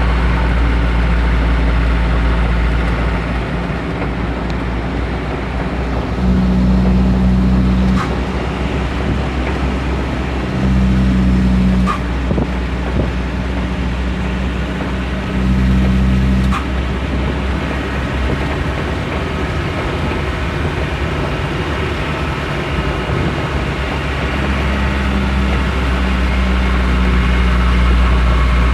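Truck engine running steadily with a low drone. Three times it grows louder for a second or two and each time stops with a sharp click, and near the end it grows louder again and stays that way.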